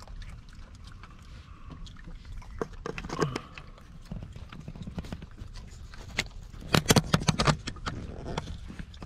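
Raccoons feeding on peanuts at a wooden feeder table: crackling, crunching and clicking as the nuts are handled and chewed, with a dense burst of clicks and knocks about seven seconds in. A brief voice-like sound slides in pitch about three seconds in.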